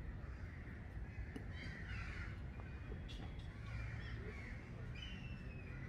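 Several short bird calls, with a longer, slightly falling call near the end, over a steady low rumble.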